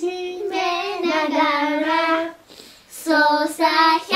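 Children singing a duet, holding long notes at first, then a brief pause about two and a half seconds in before shorter sung phrases.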